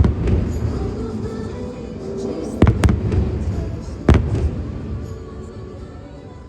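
Fireworks shells bursting with low booming bangs: one right at the start, two in quick succession near three seconds in, and another about four seconds in, over the show's soundtrack music.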